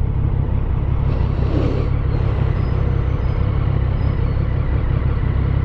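Motorcycle engine idling steadily while stopped, a loud, even low rumble, with light street traffic around.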